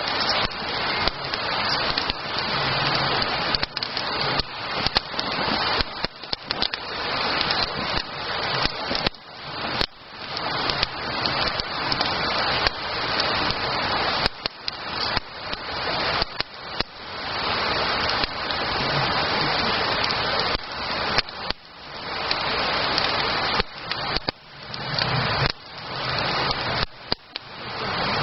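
Wood campfire burning, a continuous crackling hiss whose level keeps dropping suddenly and swelling back.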